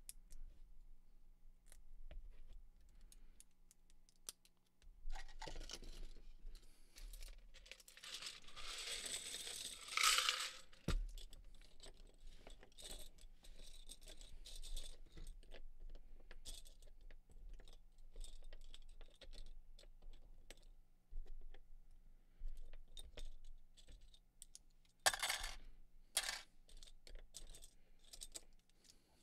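Loose plastic Lego pieces clicking and clattering as hands snap clips together and sort and slide a pile of 1x2 plates across the table. A longer dense rattle comes about a third of the way in, ending in a sharp knock, with a few louder clusters of clicks near the end.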